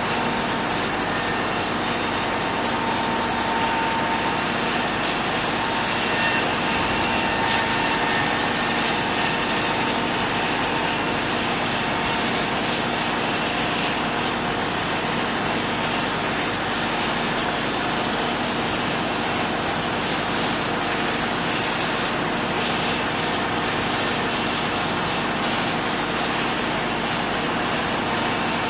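Heavy construction machinery running steadily: a constant engine drone with a faint whine over it.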